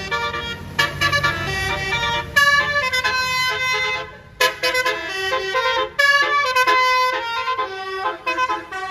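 Basuri 'telolet' multi-tone bus horn playing a fast melody of short notes at changing pitches, with a short break about four seconds in. A low engine rumble sits under the first couple of seconds.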